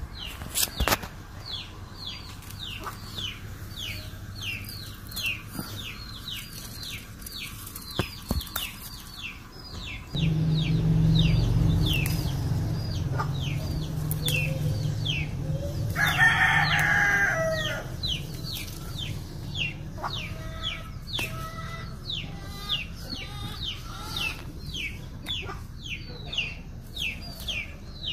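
Chickens: chicks peeping in a steady run of short falling cheeps, about two a second, with hens clucking and a rooster crowing about sixteen seconds in. A low rumble comes in about ten seconds in and fades out about eight seconds later.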